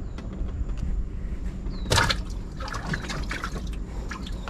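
Water splashing and trickling, with a sharp splash about two seconds in followed by a run of short clicks and knocks, over a steady low rumble.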